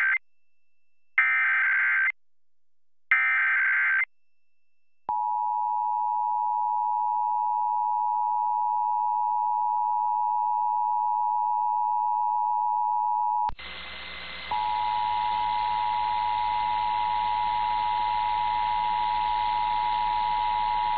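Emergency Alert System test: the last of the buzzy SAME digital header bursts, each about a second long and a second apart, then the two-tone EAS attention signal (853 and 960 Hz), a steady high two-pitch tone. About 13 seconds in, a loud hiss comes in, the tone drops out for a second, then carries on over the hiss.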